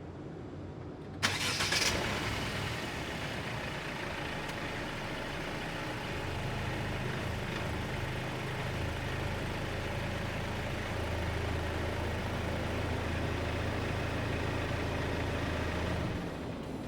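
Mercedes-Benz C300 (W205) four-cylinder petrol engine cranking and catching about a second in with a sharp burst, then running steadily. Its low hum rises in steps and drops away near the end.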